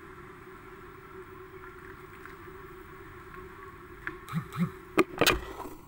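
A plastic ladle stirring a pot of vegetable soup, the broth sloshing over a steady low hiss. About four seconds in, a few soft swishes are followed by several sharp knocks of the ladle against the pot.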